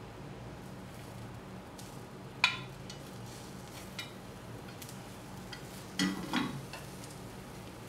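Quiet sizzle of a rolled egg omelette in a square tamagoyaki pan over a gas flame. A sharp click comes about two and a half seconds in, and a few knocks come around six seconds in as the pan is set down on the grate and chopsticks touch it.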